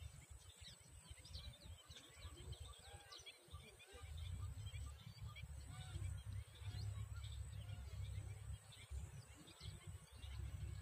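Faint outdoor ambience of many small birds chirping, with an uneven low rumble of wind on the microphone that grows stronger about four seconds in.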